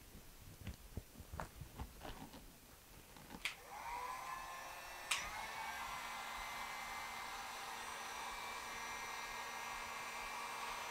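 Electric heat gun starting with a click about four seconds in, then blowing steadily, with a second sharp click about a second later. It is being used to shrink heat-shrink tubing over a crimped wire connector. Before it starts, a few small clicks of wire and parts being handled.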